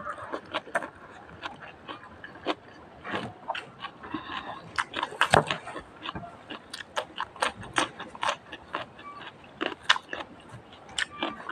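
A person biting and chewing crunchy food close to the microphone: many sharp, irregular crunches and mouth clicks.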